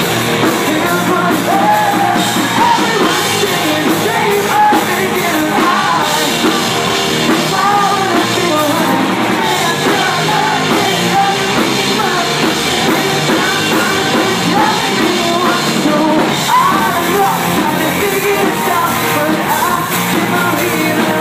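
Rock band playing live at full volume, a male lead singer singing over guitars and drums.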